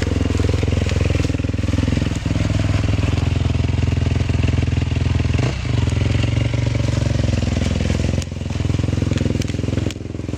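Off-road enduro motorcycle engine running steadily as the bike is ridden over rough ground. The revs dip briefly and pick up again about two, five and a half, and eight seconds in.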